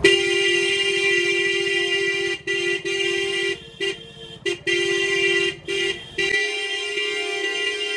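Loud horn on a modified Hero Splendor motorcycle, sounding one steady tone in long blasts with several short breaks. A low engine rumble underneath stops about six seconds in.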